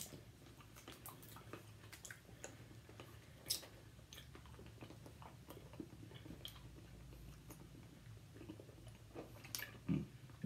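Faint chewing of a vanilla Kits taffy chew, with scattered small clicks.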